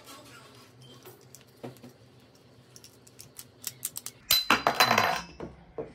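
Knipex tube cutter turned around a 3/4-inch copper pipe, with faint scraping clicks from the cutting wheel. About four seconds in, a loud metallic clatter and clink rings briefly as the cut copper pipe comes free.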